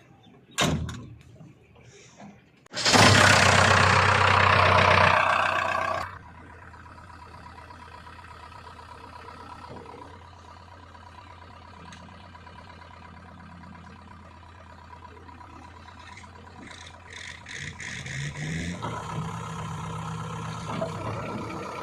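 Heavy diesel engine started with a loud burst lasting about three seconds, then settling into a steady idle. Near the end it is revved up and runs louder.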